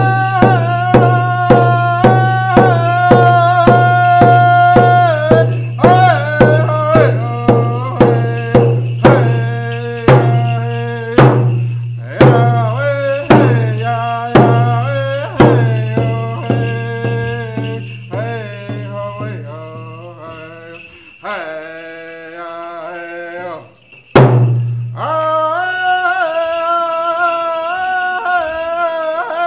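A hand drum beaten steadily with a padded stick under a man's singing voice holding long, wavering notes of a Native American song. The beat starts at about two strokes a second, thins out, stops briefly, then comes back with one hard strike near the end.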